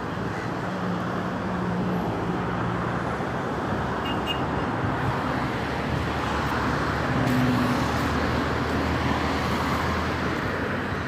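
Steady traffic rumble with a low engine hum from passing motor vehicles, holding at an even level throughout.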